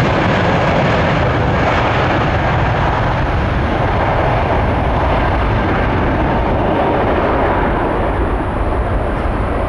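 Twin-engine Airbus A320-family airliner's jet engines at takeoff thrust during the takeoff roll, a loud steady rush of jet noise heard from close by.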